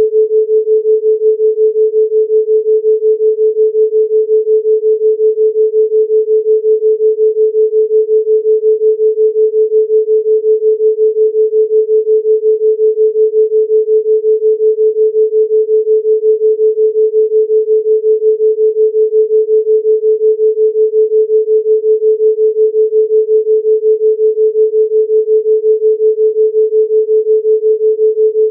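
Pure sine tone at 432 Hz, held steady throughout, its loudness pulsing evenly several times a second: a theta-rate beat for brainwave entrainment.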